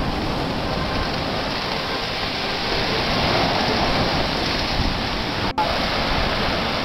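Ground fountain firework burning, spraying sparks with a steady hiss and crackle.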